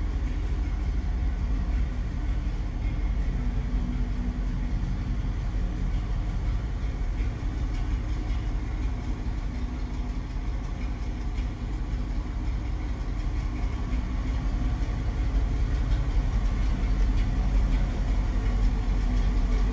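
1957 Ford F800 Big Job fire truck's V8 engine idling steadily, growing a little louder in the last few seconds.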